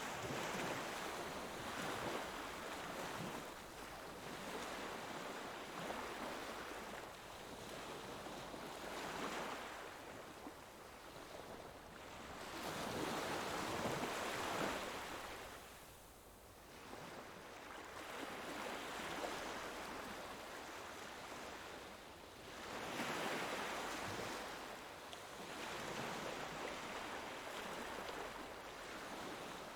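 Ocean waves breaking and washing on the shore, rising and falling in swells every few seconds, with the loudest surge about halfway through.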